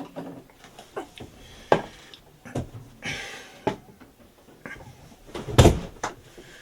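Objects being picked up and handled on a workbench: a series of light clicks and knocks, a brief rustling scrape about three seconds in, and a heavy thump past the halfway point as something is set down.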